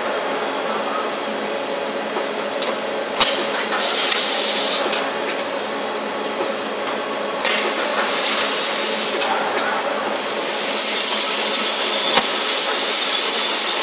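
Factory machinery running with a steady hum, broken by stretches of hissing from robotic welding, the longest starting about ten seconds in. A few sharp clicks come from the robot cell.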